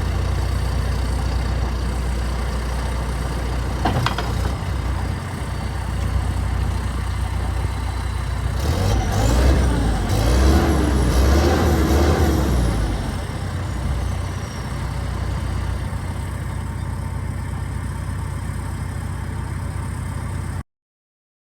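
John Deere 310SL backhoe's turbo diesel engine running steadily, with a sharp click about four seconds in. Midway it grows louder while a high whine rises and then slowly falls away, and the sound cuts off abruptly near the end.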